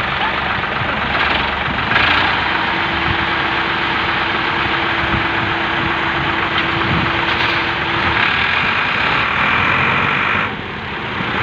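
Diesel engines of two Ford tractors, a 3610 and a 4600, running steadily under load as they haul a heavily loaded trolley, with a steady tone through the middle and a short dip near the end.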